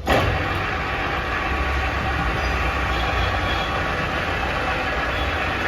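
Heavy-duty all-geared Kirloskar lathe running: the machine starts abruptly, then gives a steady mechanical whir with a faint gear whine.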